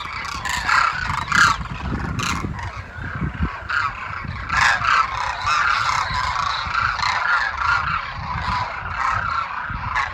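A flock of birds calling, many short honking calls overlapping throughout, over a low rumble.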